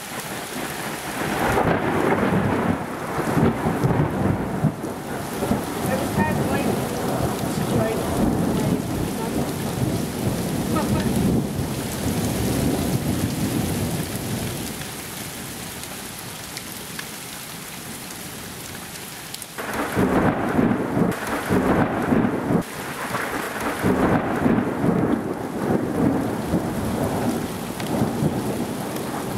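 Thunderstorm: heavy rain hissing steadily under long rolls of thunder. The rumbling eases off for a few seconds past the middle, then a loud clap of thunder breaks in suddenly about two-thirds of the way through and rolls on.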